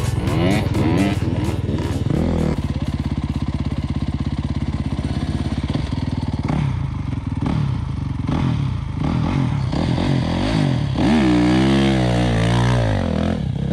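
Dirt bike engines idling with an even beat, then from about seven seconds in a Honda CRF450 single-cylinder four-stroke revs up and down several times as it pulls away through loose sand.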